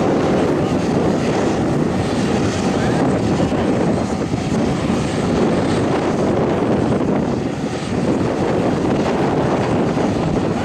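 Self-propelled compost windrow turner working a windrow: a loud, steady machine noise from its engine and rotating drum.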